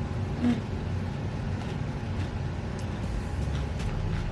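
Steady low background rumble with a few faint soft clicks, and a short hummed "mm" about half a second in.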